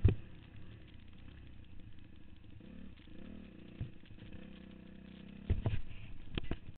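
2008 Suzuki RM-Z250 four-stroke single-cylinder dirt bike engine running under the rider, its pitch rising and falling briefly about three seconds in. Heavy thuds and buffeting hit the microphone at the start and again near the end as the bike bounces down the rough track.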